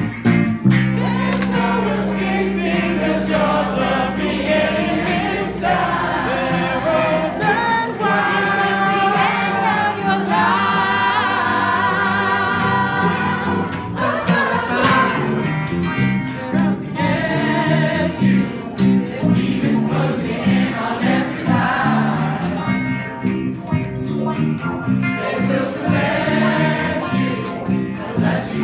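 A large amateur group singing a pop song together in chorus, backed by guitars. A held low note sits under the voices at first, and a steady pulsing bass line runs through the second half.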